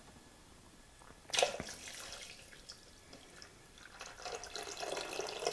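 Water poured from a measuring jug into a Thermomix mixing bowl, a thin stream that starts about four seconds in and grows steadily. A short knock about a second in.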